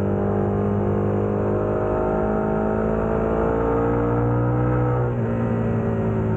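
KTM 1290 Super Adventure's V-twin through a Wings aftermarket exhaust, pulling under acceleration with the revs climbing steadily, then the revs drop sharply about five seconds in and it carries on at a steady pitch.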